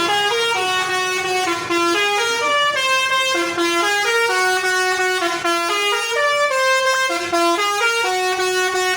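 Bus telolet horn, a multi-tone musical horn, playing a fast tune of short stepped notes with several tones sounding together, without a break.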